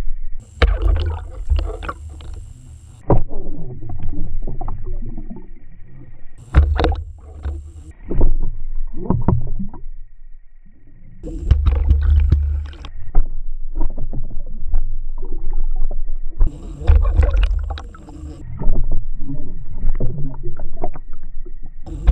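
Water rushing and rumbling over an underwater camera housing as it is towed through the water, in four surges a few seconds apart, with a faint steady high whine in between.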